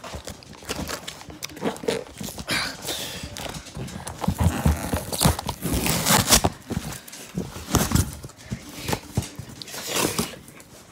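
Cardboard box being handled and opened by hand: irregular rustling, scraping and knocking of the cardboard, mixed with bumps from the phone being moved about.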